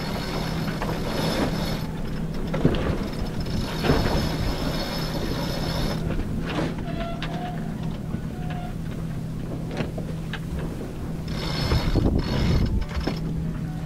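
Sailboat sheet winch being cranked with a winch handle, its pawls ratcheting in three bursts of a couple of seconds each: at the start, about four seconds in, and near the end, over a steady low hum.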